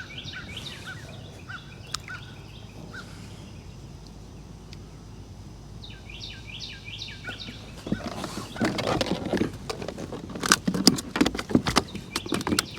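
A songbird sings runs of quick repeated chirps. From about eight seconds in, irregular knocks and rustling take over and become the loudest sound: a freshly caught fish flopping on the kayak.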